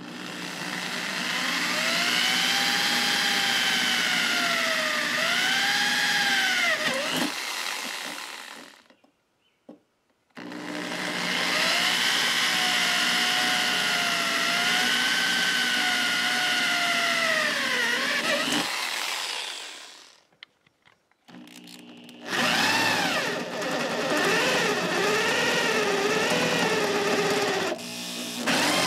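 A hand-held electric drill bores through square steel tubing with a twist bit in three runs of several seconds each, with short pauses between them. The motor's whine wavers and dips in pitch as the bit cuts. The hole is started with a small pilot bit and then opened up with a larger bit.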